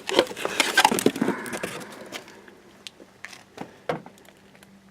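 Plastic headlight assembly and its packaging being handled: a dense run of crackles and clicks for about two seconds, then a few scattered clicks and knocks.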